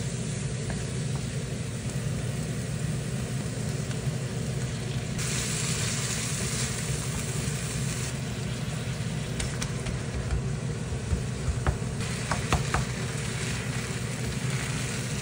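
Chopped bok choy sizzling in hot oil in a frying pan as it is stir-fried, with the hiss growing brighter for a few seconds mid-way. A spatula scrapes and taps against the pan in a scatter of clicks in the later part, over a steady low hum.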